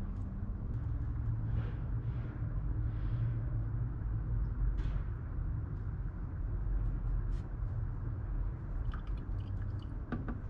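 The Duramax 6.6 V8 turbodiesel idles with a steady low rumble, warming up after its radiator has been replaced and the cooling system refilled. A few light clicks come near the end.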